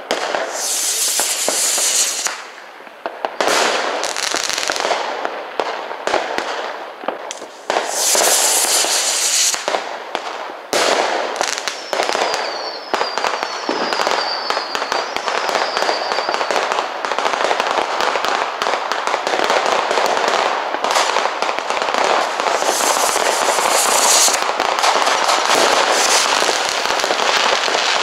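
New Year's Eve fireworks and firecrackers going off all around in a continuous dense crackle of bangs and pops. There are bursts of hissing about a second in, around eight seconds and near the end, and a few short falling whistles midway.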